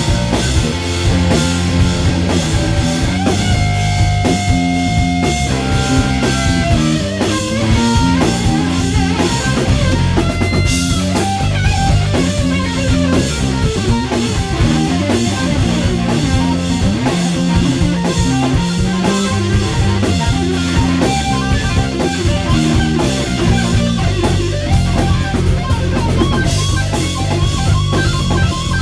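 Live rock band: a Telecaster-style electric guitar plays over a drum kit, with one long held guitar note about four seconds in.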